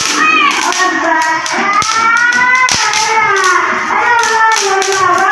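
Small novelty firecrackers going off with a few sharp, irregularly spaced cracks and spark fizz, over background music with a wavering melody.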